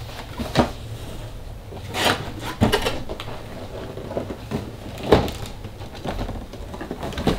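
Large cardboard box being handled: turned over, its flaps pulled open, with a handful of dull thumps and knocks, the loudest about five seconds in, between stretches of cardboard scraping and rustling.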